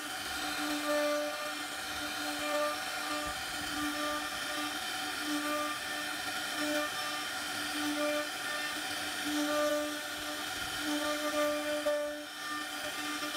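CNC router spindle whining steadily as its carving bit cuts a relief scroll pattern into mahogany, the tone swelling and dipping every second or so as the bit moves through the wood.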